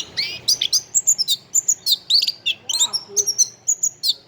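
Orange-headed thrush (anis kembang) singing: a fast, varied run of short high chirps and quick falling whistled notes with brief pauses, used as a tutor song for other songbirds.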